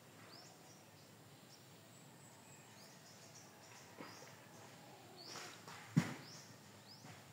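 Faint background with scattered short, high chirps from small birds, and a sharp knock about six seconds in.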